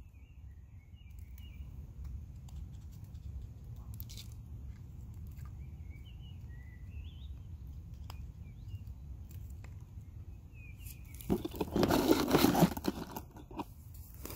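Small birds chirping on and off in the background. About eleven seconds in, two seconds of loud scraping and crunching: a knife shaving curls off a stick of fatwood.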